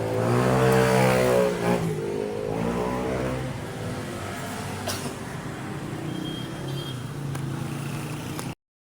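A motor vehicle engine revving up about a second in, then easing off and running steadily. The sound cuts off abruptly near the end.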